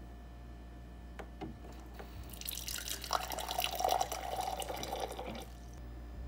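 A couple of light clicks, then hot water pours from a Ruhens water-purifier dispenser into a glass over a tea bag for about three seconds and stops sharply.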